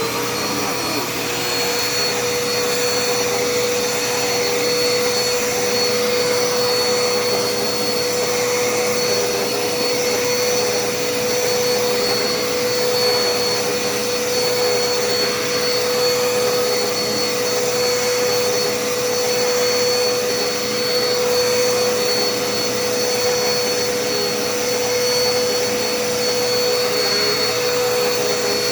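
Dirt Devil Endura Reach vacuum cleaner running steadily: a high motor whine over rushing airflow. The motor is just coming up to speed in the first moment.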